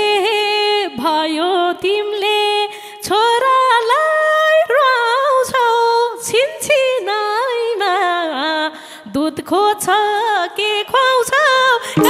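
Nepali dohori folk music in a solo passage: one unaccompanied melodic line gliding and wavering in pitch, with the madal drums silent.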